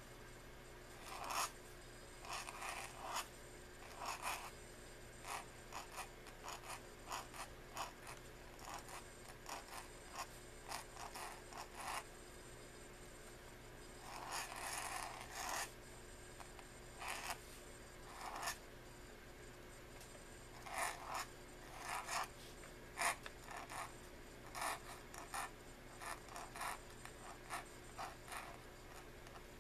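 Pointed metal dip-pen nib scratching across paper in short, irregular strokes as calligraphy letters are written, with brief pauses between strokes and one longer stroke about halfway through.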